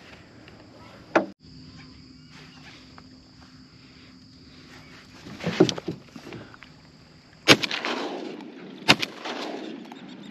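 Two shotgun shots about a second and a half apart in the second half, each with a short ringing tail, preceded by a brief clatter of the gun being handled.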